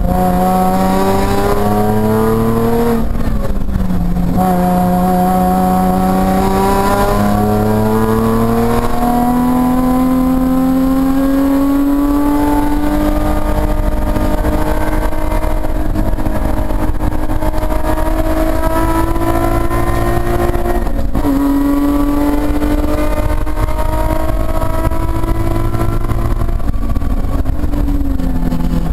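Nissan 350Z race car's V6 engine heard from inside the cabin, pulling hard on track with its pitch climbing as the car accelerates. The pitch drops sharply at about three seconds, again around twenty-one seconds and once more near the end, as the driver shifts or lifts before climbing again.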